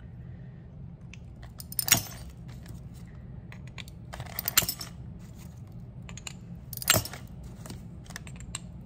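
Mosaic nippers snapping pieces off the thick glass of a flower vase: three sharp cracks about two and a half seconds apart, with small clinks of glass between.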